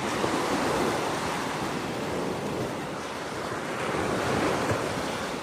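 Waves washing onto a beach, swelling and easing, with wind buffeting the microphone.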